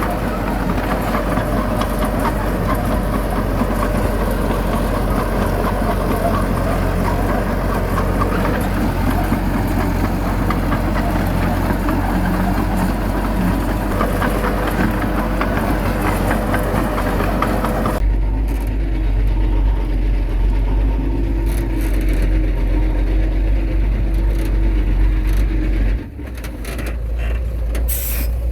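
Heavy diesel engines of earthmoving machinery running steadily under work, changing abruptly about two-thirds of the way through and again near the end, with a few sharp knocks at the close.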